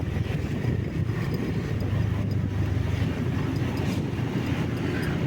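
Steady rumble of a vehicle driving along the road, with engine and road noise and some wind on the microphone.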